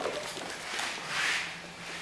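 Scuffling and pattering of a Bernese mountain dog puppy's paws as it runs across a wooden floor and onto a rug, with the loudest scuffle about a second in. A faint steady hum lies underneath.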